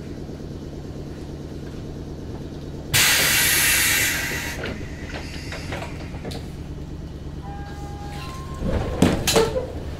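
Inside a JR West 105 series electric train car: a steady low hum, broken about three seconds in by a sudden burst of compressed-air hiss that fades over a second or two. Near the end come a few short tones and a cluster of loud clunks.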